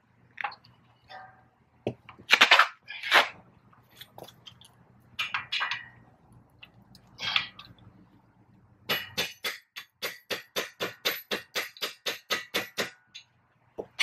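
Metal tools clinking and knocking, the loudest about two seconds in. Then a socket ratchet wrench clicks steadily, about five clicks a second for some four seconds, as it turns the nut at the centre of the front wheel hub.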